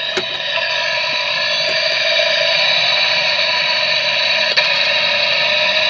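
Drivetrain noise picked up by a contact sensor at the bottom of a 2016 Mitsubishi Outlander's differential: a steady, distorted whine of several tones over a hiss, with a couple of faint clicks. It is kind of a normal diff noise.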